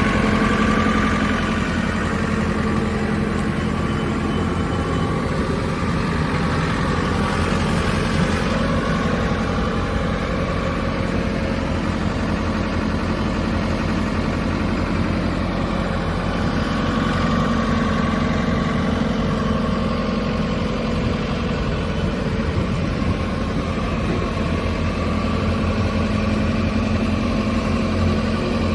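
JCB 3CX backhoe loader's diesel engine idling steadily.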